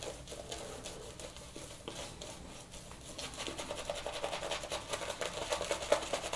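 Omega mini boar shaving brush working lather over a face in quick strokes: a soft, rapid, scrubbing rustle that grows louder past the middle.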